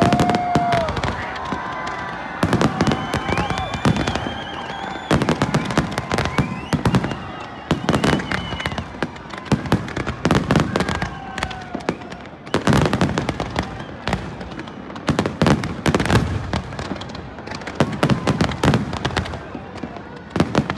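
Fireworks display: a continuous barrage of bangs and crackling, coming in loud waves about every two and a half seconds.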